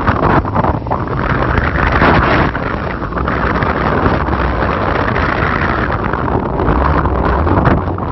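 Off-road vehicle driving with its engine running and wind noise on the microphone.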